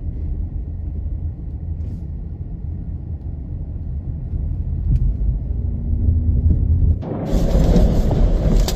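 Storm noise: a steady low rumble of wind on the microphone, then, about seven seconds in, a sudden switch to a louder, hissing rush of wind and rain.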